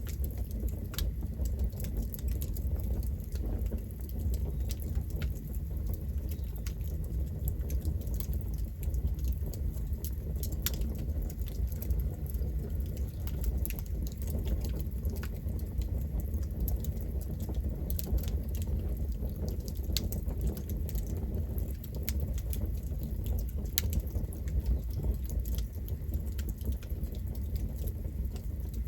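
Campfire burning, with a steady low rumble and frequent small crackles and pops at irregular intervals.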